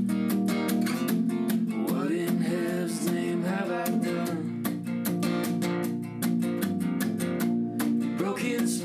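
Acoustic guitars playing a folk instrumental passage: a steady strummed rhythm under a melodic lead line that bends in pitch.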